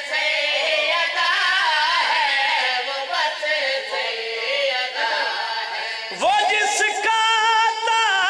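A man singing a verse of an Urdu/Punjabi qasida, a devotional praise poem, in a melodic chant. About six seconds in he rises to a loud, long held high note with a wavering pitch.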